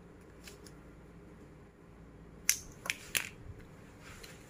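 Scissors snipping through plastic drinking straws: three sharp snips in quick succession about halfway through, after a couple of faint clicks.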